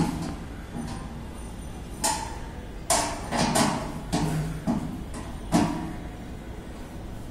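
A long socket spanner clinking and scraping on the metal mounting bracket of a satellite dish as its nuts are tightened: a run of separate metallic knocks and clicks, busiest around three to four seconds in.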